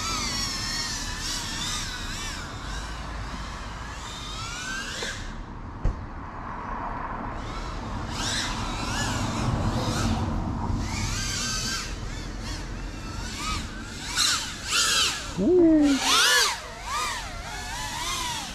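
FPV quadcopter's brushless motors and propellers whining, the pitch rising and falling constantly with the throttle, louder near the end. A single sharp click about six seconds in.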